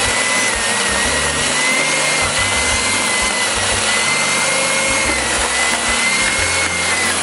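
Electric hand mixer running steadily, its twin beaters whisking a runny egg, condensed-milk and turrón batter in a plastic bowl. A high motor whine wavers slightly over a loud hiss, and the motor slows and stops near the end.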